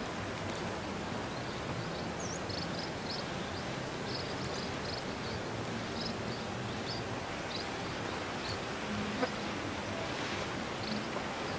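Outdoor background hiss with small birds chirping faintly: short, high, scattered chirps, one a quick down-and-up glide. There is a single click about nine seconds in.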